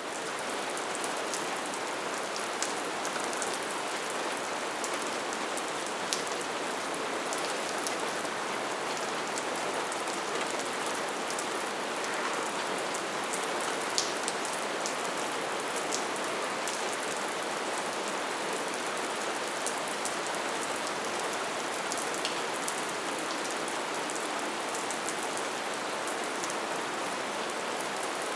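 Light, steady rain falling on a surface: an even hiss with scattered sharp drop ticks.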